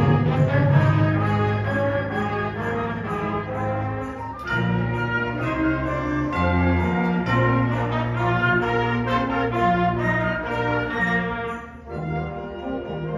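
High school concert band of brass and woodwinds playing sustained chords with a moving bass line. The sound thins briefly about four seconds in and again near the end, between phrases.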